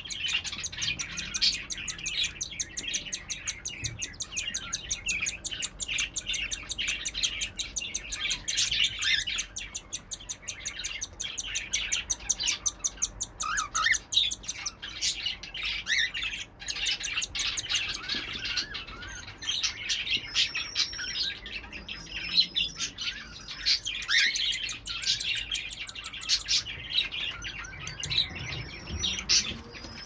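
Cockatiel chick's rapid, rhythmic begging chirps as its father feeds it beak-to-beak, a continuous stream of short high calls with a few louder ones.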